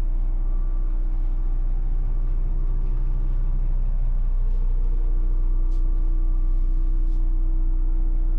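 Steady drone of a Volvo B11R coach's diesel engine and road noise inside the passenger saloon while under way, the engine note changing slightly about four seconds in.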